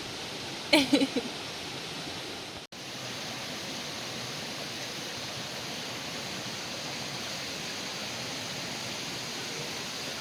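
Stream water running: a steady, even wash of flowing water. A short voice sound comes about a second in, and the sound cuts out for an instant a little later.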